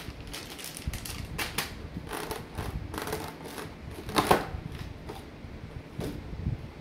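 Irregular clicks, crinkles and rustles of plastic packaging and an anti-static bag being handled, the loudest about four seconds in.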